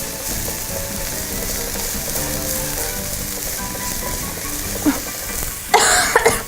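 Chopped green onion frying in hot chili oil over high heat: a steady sizzle. A short, loud burst comes near the end.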